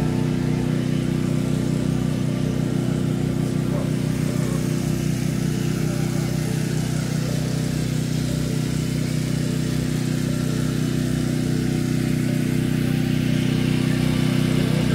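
An engine or motor running steadily, an even low hum that holds the same speed throughout.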